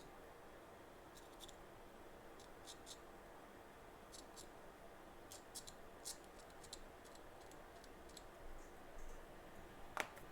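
Faint scattered clicks and light taps of small metal tools being handled on a repair bench, over a steady low hiss; a sharper click near the end.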